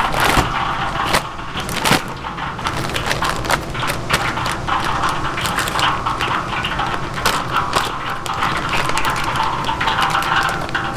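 Street-food cooking: a steady sizzling hiss with frequent sharp clacks of utensils against pans and trays.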